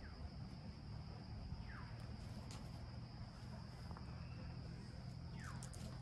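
A steady high-pitched insect drone, like crickets, over a low hum, with two short falling chirps, one about two seconds in and one near the end.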